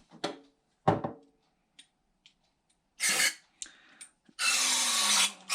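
Two bursts of pressurized spray hissing through carburetor jet passages: a short one about three seconds in and a longer one of about a second near the end. A few light knocks of small metal parts come before them.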